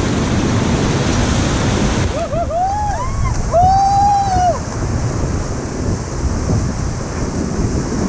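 Rushing whitewater of river rapids, with wind buffeting the microphone. Between about two and four and a half seconds in, a few short voice whoops and then one long held shout rise over the water.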